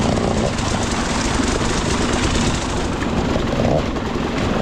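Husqvarna 300 two-stroke enduro motorcycle engine running steadily as the bike is ridden over rough trail. The engine has a newly rebuilt clutch, gearbox, piston and cylinder and is being run in.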